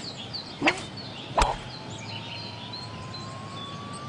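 Cartoon golf shot: two sharp knocks under a second apart, the second the club striking the ball, then a thin whistle that rises slowly in pitch as the ball flies off. Birds chirp faintly in the background.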